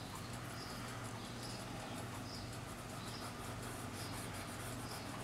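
Cotton swab rubbing over oil pastel on drawing paper to blend it, soft strokes a little more often than once a second, over a steady low hum.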